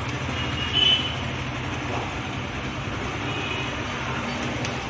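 Steady mechanical rumble and hum, with a brief high squeal a little under a second in and a fainter one later.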